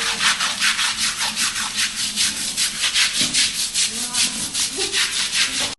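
Fast, rhythmic rubbing or scrubbing strokes, roughly five a second, with faint voices in the background.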